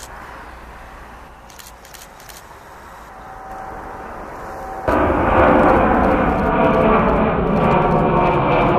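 Antonov An-124's four turbofan engines at climb power: a distant, fairly quiet rumble for the first five seconds. Then the sound jumps abruptly to a loud rumble with a steady high whine as the aircraft passes close overhead.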